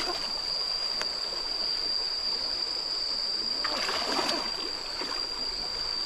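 Muddy stream water sloshing and splashing as hands grope through a shallow puddle for fish, a louder burst of splashing about four seconds in, over a steady high-pitched whine.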